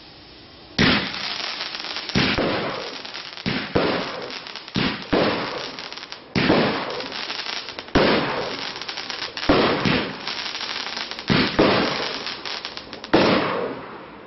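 A Tropic 'Big Ballet' 30 mm firework battery firing its shots one after another, about ten loud bangs roughly every second or so. Each bang trails off in a crackling rush. The run begins about a second in, after a faint hiss.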